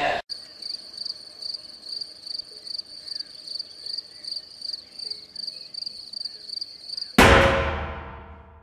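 Crickets chirping in a steady, even rhythm: the stock sound effect for an awkward silence. About seven seconds in, a sudden loud hit cuts them off and rings on, fading out over a second and a half.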